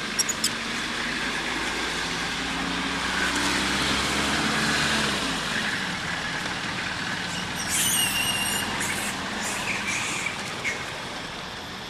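A motor vehicle's engine runs steadily over outdoor hiss and fades away about five seconds in. A short high squeal comes near eight seconds in.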